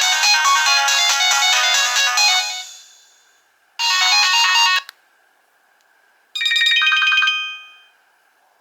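Nokia 1800 ringtones playing through the phone's speaker: a polyphonic melody fades out about two and a half seconds in, then two short snippets of other ringtones, about a second each, sound with pauses between them.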